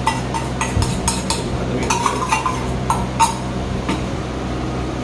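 Stainless-steel dishes: a small steel bowl scraped and knocked against a steel plate as curry is served, giving a series of sharp metallic clinks, each with a short ring, over a steady low hum.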